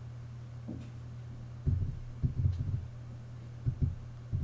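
Steady low electrical-type hum, with a few soft low thuds: one about two seconds in, a short cluster just after, and another near the end.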